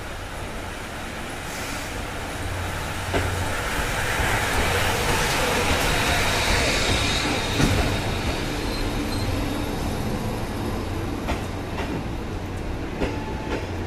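Steam locomotive C58 363 and its passenger coaches running slowly past along a station platform: a steady rush of wheel and running noise that swells to its loudest as the locomotive goes by, then eases as the coaches follow, with a few sharp clacks from the wheels over rail joints.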